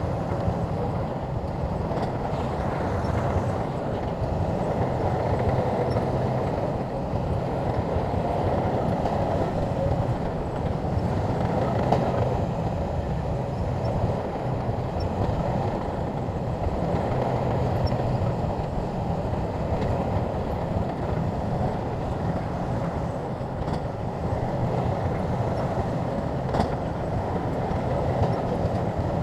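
SHANTUI crawler bulldozer's diesel engine running steadily, with a few sharp clanks now and then.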